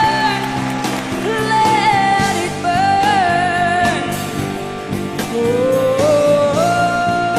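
A woman singing long held notes that slide between pitches, over a band accompaniment.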